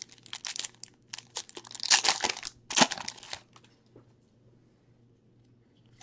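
Trading card pack wrapper being torn open and crinkled by hand: a dense crackle for about three and a half seconds, with the loudest crunches around two and three seconds in.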